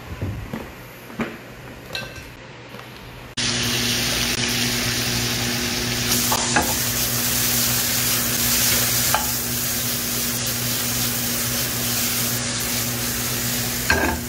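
A few light knocks, then about three seconds in beef salpicao cubes start sizzling loudly as they fry in a pan, with a steady low hum underneath.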